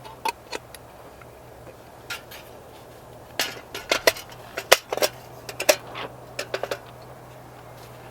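Clinks and knocks of dishes and utensils being handled, a quick cluster of sharp hits with short ringing in the middle, over a faint steady low hum.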